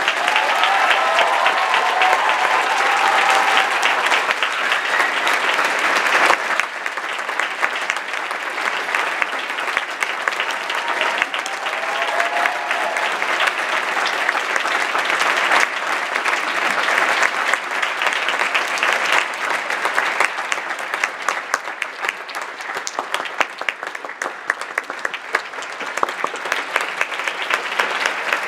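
Theatre audience applauding steadily after the music has ended, a dense patter of many hands clapping.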